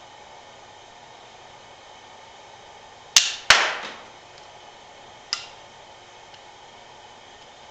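A rubber-band gun fires a menko card. About three seconds in there are two sharp snaps a third of a second apart, the second the loudest with a short ringing tail, and a fainter smack follows about two seconds later.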